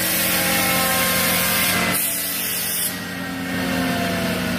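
CNC router spindle spinning down after the cut: a steady whine with several tones slowly falling in pitch, over a constant hiss of machine noise that thins a little about three seconds in.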